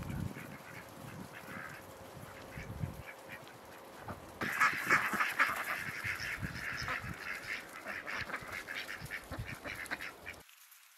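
A flock of domestic ducks quacking, scattered calls at first, then a dense, louder chorus of overlapping quacks from about four seconds in as the birds crowd together.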